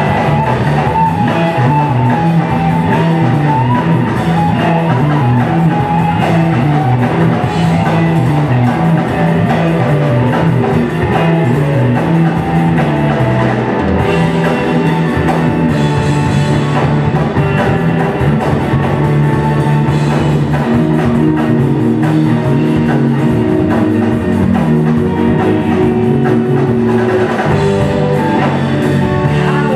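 Live rock band playing an instrumental passage on guitar and drum kit, loud and steady throughout.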